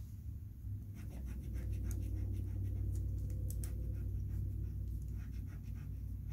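Pastel pencil scratching across paper in many short, quick strokes, starting about a second in, over a steady low hum.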